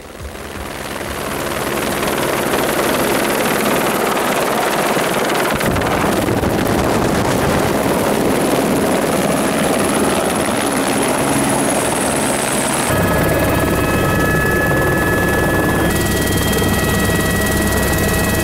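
Helicopter running with its rotor turning, a loud steady rotor and engine noise that builds over the first couple of seconds. About two-thirds of the way through it turns into a heavier, lower rumble with steady whining tones, as heard from inside the cabin.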